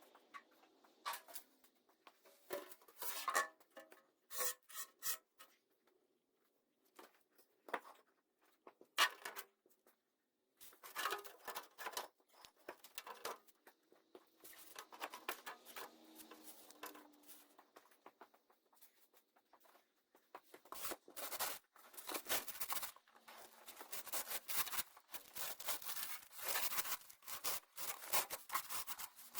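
Irregular rustling, rubbing and sharp clicks of hands and tools being worked and handled, coming in bursts with short pauses and growing busier in the last third.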